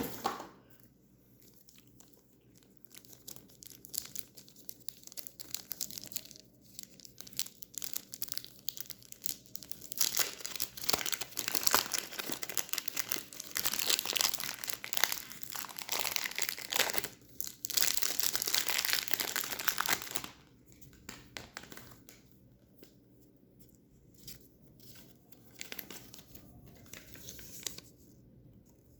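Packaging of a budget 3x3 speed cube being torn open and crinkled. Scattered rustling at first, then a long, loud stretch of crinkling in the middle, then lighter rustling.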